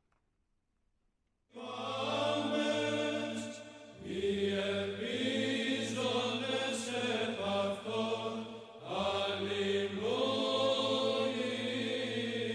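Byzantine Orthodox chant sung by a choir: the melody moves over a steady held drone (the ison). It begins about a second and a half in, after a short silence, with brief breaks between phrases.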